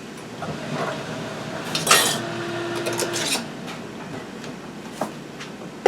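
Kitchen utensils clinking and scraping against a stock pot and glass canning jars while hot salsa is scooped into the jars. The loudest is a sharp clink about two seconds in, followed by a brief ring, with a few lighter knocks later.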